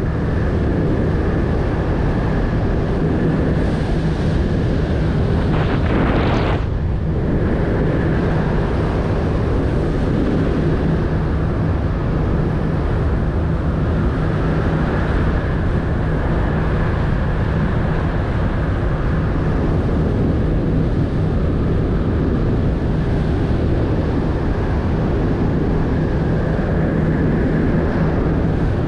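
A crew boat's engines run steadily under way, a constant drone with a low hum, mixed with wind buffeting the microphone and water rushing past the hull. A brief louder rush comes about six seconds in.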